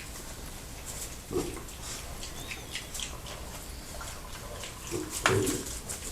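Farm animals making short low calls, one about a second and a half in and a louder one near the end, over faint scattered clicking and rustling.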